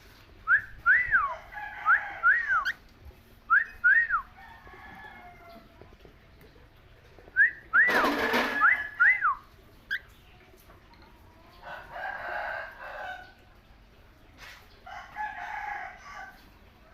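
Small pet parrots calling: short rising-and-falling chirps, mostly in quick pairs, then stretches of rougher chattering near the middle and toward the end.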